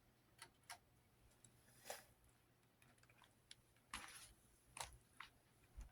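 Hampton Bay Gazebo II Plus ceiling fan running on medium, very quiet: a faint low steady hum with scattered light, irregular ticks and clicks.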